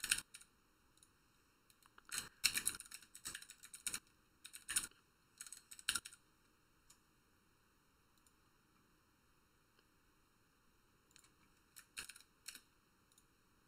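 Typing on a computer keyboard: two flurries of keystrokes with a pause of several seconds between them.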